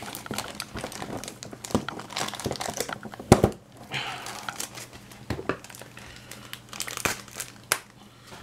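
Clear plastic diecast-model packaging crinkling and crackling as it is handled and pulled at, with a sharp snap a little over three seconds in.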